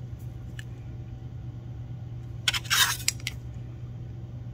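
Metal ruler handled on a tabletop: a few light clicks, then about two and a half seconds in a short clatter and scrape as it is set down and slid into place across a plastic sheet. A steady low hum runs underneath.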